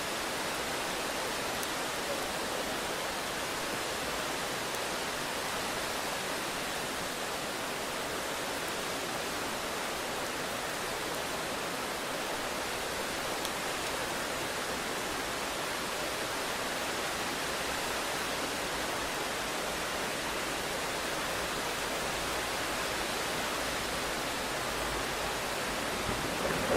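Heavy rain falling steadily, an even hiss with no breaks. Near the end a low rumble of thunder begins to build.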